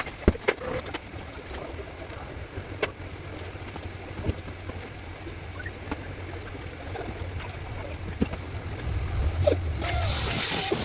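Workshop sounds during a car engine rebuild: scattered clinks and knocks of tools on metal over a steady low hum. A louder hiss comes in about a second before the end.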